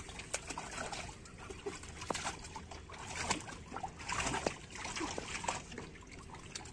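Shallow water in an inflatable pool splashing and sloshing as a German Shepherd puppy moves and paws about in it, with many small irregular splashes and drips and a busier spell of splashing around the middle.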